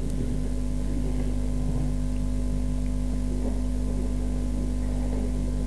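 Steady low electrical hum with a constant hiss from the microphone and sound-system chain.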